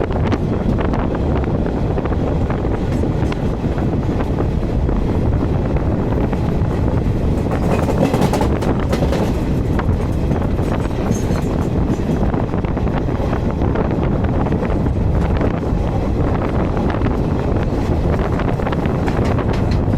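Indian Railways passenger train hauled by a WAG-5 electric locomotive running under acceleration: a steady rumble of wheels on track with wind rushing over the microphone.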